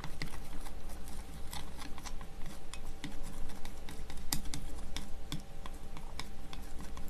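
Chopsticks clicking and scraping irregularly against a small ceramic dish, stirring wasabi into soy sauce.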